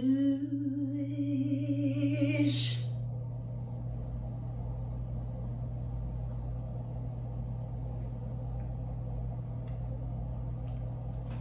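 A woman's voice sings a long 'ooh' note that glides up and is held for about three seconds. After that only a steady low hum with a faint rumble goes on.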